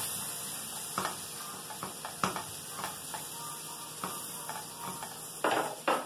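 Diced calabresa sausage, corn and tomato sizzling in oil in a frying pan, while a silicone spatula stirs the mix and knocks against the pan a few times.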